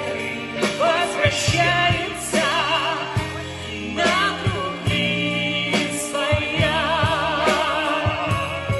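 A live vocal-instrumental band playing a pop ballad: sung vocals with vibrato over bass and a steady drum beat.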